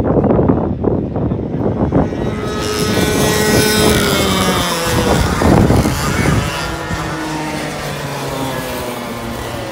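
Racing karts' 100cc two-stroke engines passing on the track. Their high whine falls in pitch as they go by, then carries on more steadily as they run away down the circuit. Wind buffets the microphone in the first two seconds.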